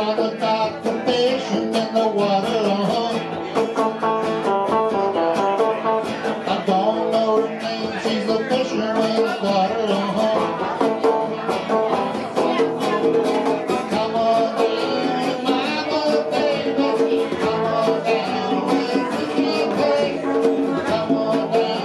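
Small live band playing a pop song with conga drums, acoustic and electric guitars and upright bass in a steady strummed groove.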